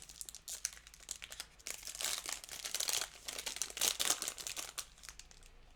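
Plastic card packaging crinkling and rustling in irregular crackles as a trading card pack is unwrapped and the cards are handled.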